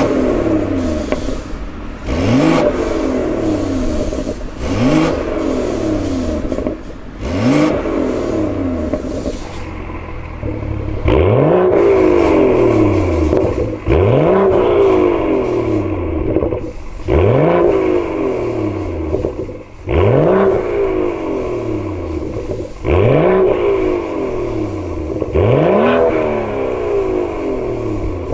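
BMW 640i GT's turbocharged 3.0-litre inline-six, revved repeatedly in short blips through an Fi Exhaust valved cat-back with carbon quad tips, about one rise and fall every two and a half seconds. The first four blips are with the exhaust valves closed; after a short pause about a third of the way in, the valves are open and the blips come louder.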